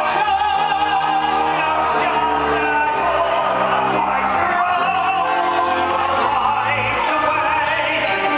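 Live musical theatre performance: a theatre orchestra playing sustained, dramatic music with cast voices singing over it, heard from the auditorium.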